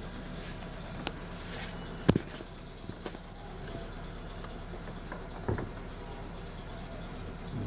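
Steady low mechanical hum, with a few sharp knocks, the loudest about two seconds in.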